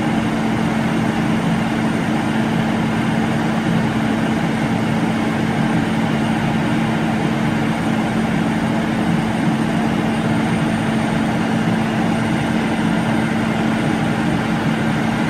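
Crane truck's diesel engine running at a steady speed with a constant hum, driving the Hiab knuckle-boom crane's hydraulic pump.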